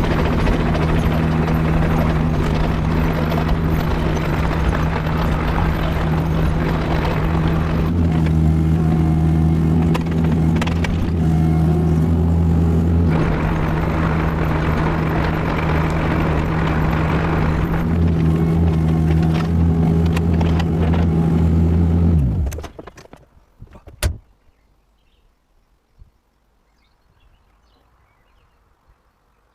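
Kubota KX161-3 excavator's diesel engine running under working load, with the hiss and whine of the hydraulics rising and falling. About 22 s in the engine winds down and stops, followed by a single sharp knock.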